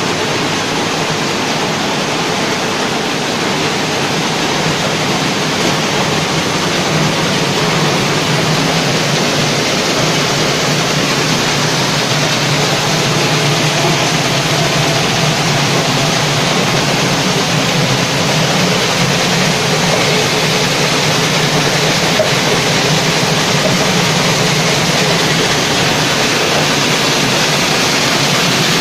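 Vibrating pan feeder running under load, its steel pan rattling with crushed stone, a steady loud noise with a low hum from the vibrator motor and plant machinery.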